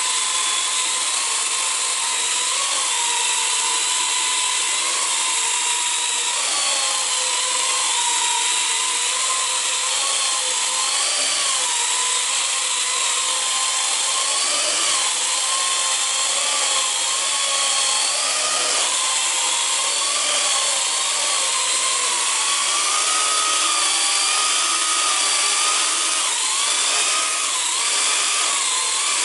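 Small quadcopter drone hovering, its four electric motors and propellers giving a steady whine over a high hiss. The pitch keeps wavering up and down as the rotors speed up and slow down, the flight controller constantly adjusting thrust to hold height and yaw.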